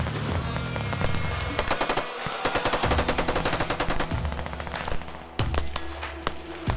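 Automatic gunfire: a long rapid burst of shots, well over ten a second, from about one and a half to four seconds in, then a few separate shots near the end.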